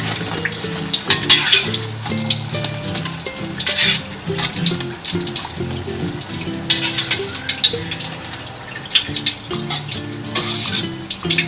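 Oil sizzling and crackling around frying martabak telur, egg-and-spring-onion parcels wrapped in spring roll pastry, with irregular sharp crackles throughout. Background music plays underneath.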